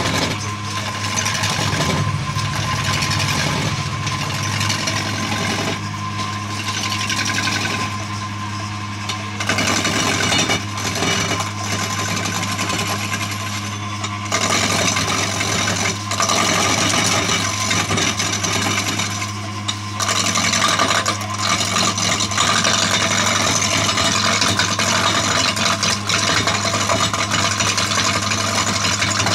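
Electric woodworking machine running with a steady motor hum while wood is cut against it, giving a harsh scraping noise that grows and fades every few seconds.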